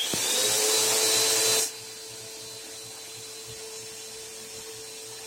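An electric motor starting up with a loud rushing whir, its pitch rising as it spins up. About a second and a half in the rush drops away, leaving a quieter steady hum.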